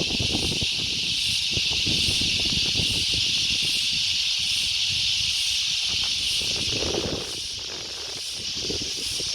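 Wind buffeting the microphone in gusts, easing for a moment near the end, over a steady high-pitched insect chorus.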